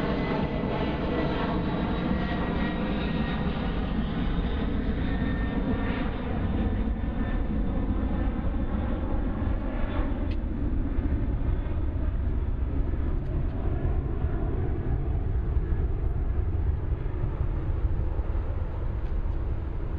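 Steady low rumble of a slow line of police cars driving past, with the drone of an aircraft engine overhead that fades out about halfway through.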